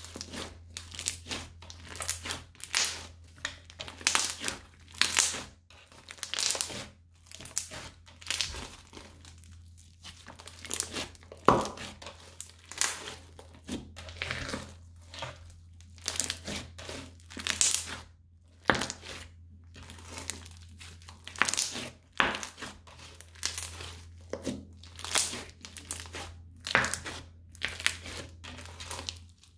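Crunchy slime studded with small beads being squeezed, stretched and folded by hand, giving irregular bursts of crackling and crunching, with a few sharper pops.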